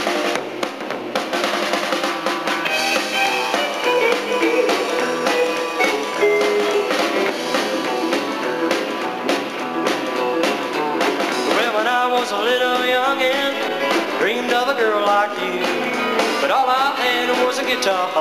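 Live country-rock band playing through amplifiers: a drum kit, an electric bass and electric guitars, at a steady loud level.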